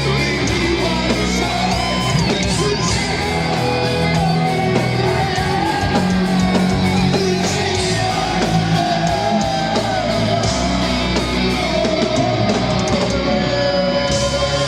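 Heavy metal band playing live at full volume: distorted electric guitars, bass and drums driving on steadily, with a wavering melodic line over the top.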